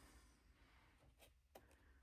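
Near silence: room tone with a low hum and a few faint ticks.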